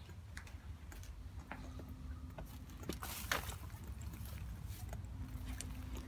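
Footsteps crunching through dry grass and twigs: irregular crackles, with one louder snap about three seconds in, over a low rumble.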